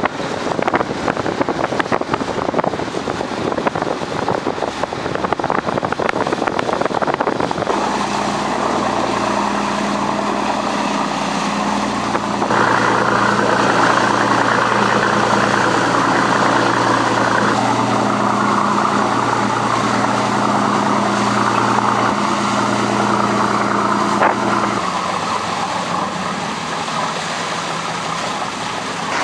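Rescue boats' engines running steadily under way, with water rushing along the hulls. The first quarter is a rough rush of wind and water without a clear engine note, and the rush swells for a few seconds in the middle.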